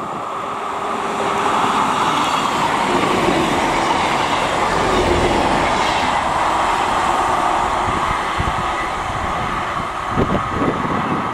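East Midlands Railway Class 158 diesel multiple unit, two units coupled, running past close by at speed. Its engine and wheel noise build over the first second or two, hold steady, then ease off as the rear passes near the end, with the engine note dropping in pitch about halfway through as it goes by.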